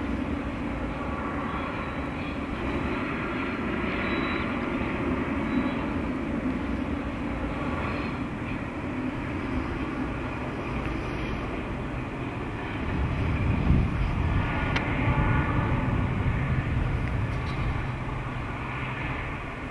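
Three Deutsche Reichsbahn V100 (class 112) diesel locomotives working a train, a steady engine drone that grows louder and deeper about two-thirds of the way through.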